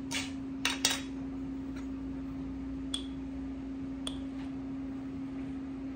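A metal measuring spoon scooping and clinking in a glass jar of baking soda. There are a few light clicks in the first second and two small ringing clinks about three and four seconds in, over a steady low hum.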